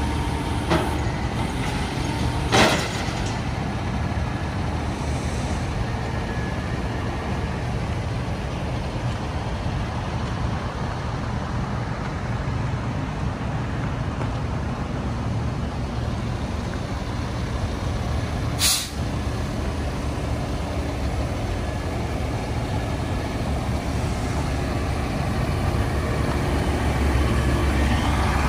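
Diesel engine of an International HV607 roll-off truck idling steadily. Two short, sharp hisses of air are heard over it, one about two and a half seconds in and another about eighteen seconds in.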